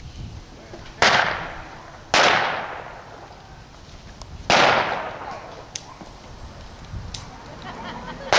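Three loud gunshots from guns firing blanks: one about a second in, one just after two seconds and one at about four and a half seconds, each followed by a trailing echo, with a few faint clicks between them.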